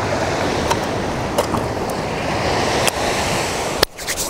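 Steady rush of ocean surf breaking on the beach, mixed with wind, with a few faint clicks and a brief drop in level near the end.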